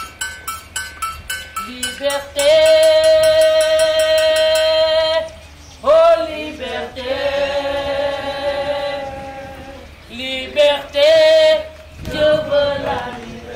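A voice singing long held notes, with a rising slide into the second note about six seconds in, then shorter notes near the end. A regular clicking, about three a second, runs for the first couple of seconds.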